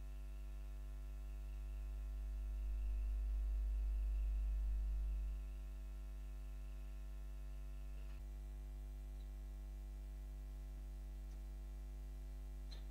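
Steady low electrical mains hum, swelling louder for a few seconds before settling back. A faint high whine stops with a small click about eight seconds in.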